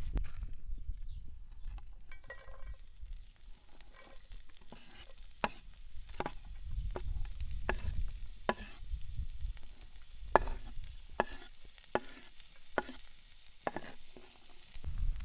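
Grützwurst frying and sizzling in a cast-iron pan, stirred with regular scraping strokes of a spatula against the pan, about one stroke a second from a few seconds in. A low rumble runs underneath.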